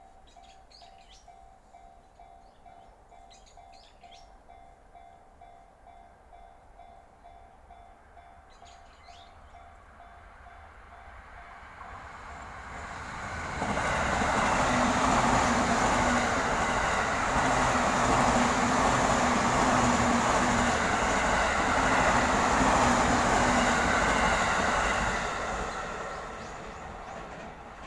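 Train on the JR Utsunomiya Line passing close by. It builds up from about ten seconds in, stays loud for about ten seconds, then fades away. A faint steady tone and a few short chirps come before it arrives.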